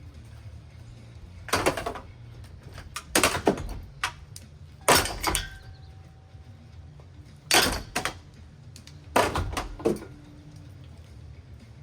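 A rusty old ceiling fan being smashed: a series of loud crashes and clanks as it is struck again and again, in about five separate bursts. A short metallic ring follows one of the blows about five seconds in.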